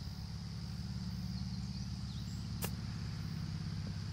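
A golf wedge striking the ball on a short chip shot: one sharp click about two and a half seconds in. Under it, a steady low engine drone and a constant high hum.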